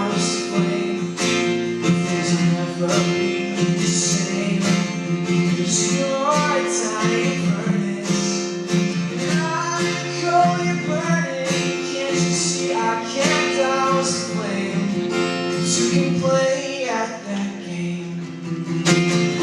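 Acoustic guitar strummed in a steady rhythm in a live song performance, with a voice singing over it at times.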